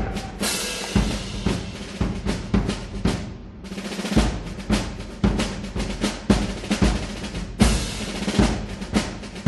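Drum-led background music with a steady beat of sharp hits. It thins out almost to nothing for a moment about three and a half seconds in, then picks up again.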